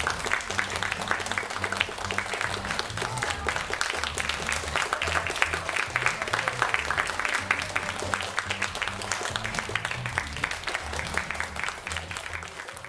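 Audience applauding steadily, over background music with a bass line that moves in short blocky steps.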